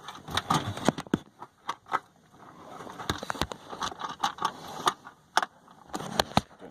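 Irregular metallic clicks and clinks of a 10mm socket on a swivel extension working a bolt into the air box mounting in a truck's engine bay.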